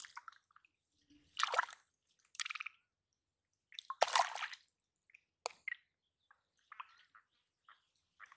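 Muddy water splashing and squelching as an arm gropes for a catfish inside a small flooded hole in the ground. There are a few separate splashes, the loudest about four seconds in, with small drips and squishes between.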